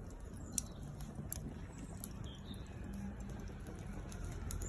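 Faint outdoor background noise: a low rumble with scattered light clicks and ticks.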